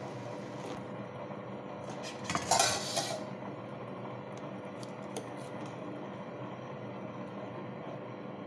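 Stainless steel pot lid clattering against a steel vessel of batter, a loud burst about two to three seconds in, then a few light spoon clinks, over a steady low hum.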